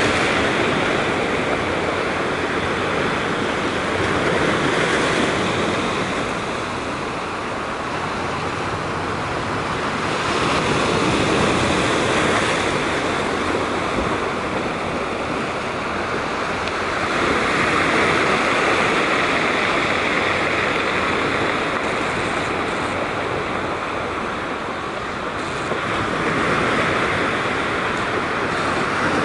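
Sea surf breaking and washing over rocks along a rocky, pebbly shore: a continuous rush that swells and eases every several seconds as the waves come in.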